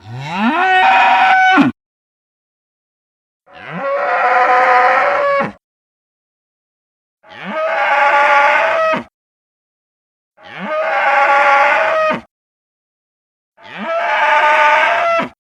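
Triceratops horridus dinosaur sound effect: five separate deep calls of about two seconds each. Each starts with a quick upward slide in pitch, holds steady, and cuts off sharply into silence.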